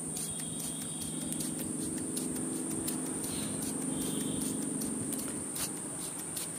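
Hand trigger spray bottle squirting water in a quick series of short spritzes, wetting cocopeat. Crickets trill steadily and high-pitched behind it, with a low steady hum through most of it.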